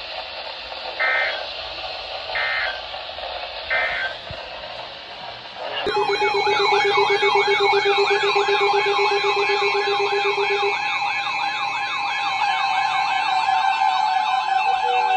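Three short digital data bursts over weather-radio audio, typical of an EAS SAME header. About six seconds in, a loud electronic siren cuts in suddenly: several tones rapidly wailing up and down, about two to three cycles a second, over steady held tones.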